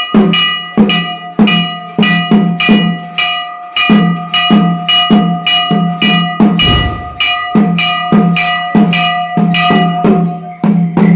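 A metal bell struck over and over in a quick, even rhythm, about two or three strokes a second, its ringing tones carrying on between strokes.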